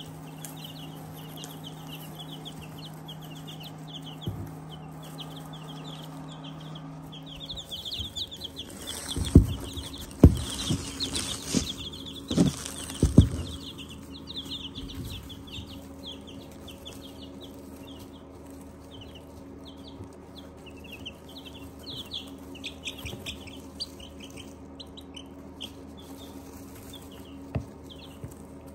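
A brood of two-week-old Black Onyx chicks peeping continually. About a third of the way through comes a burst of loud knocks and rustling as the phone filming them is moved and repositioned.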